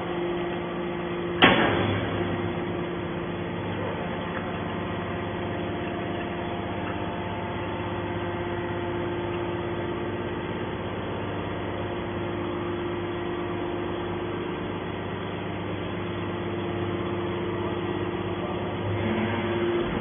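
Hydraulic scrap-metal baler running, its pump unit giving a steady hum while the ram pushes a compressed bale of scrap out of the press chamber. A single sharp bang about a second and a half in.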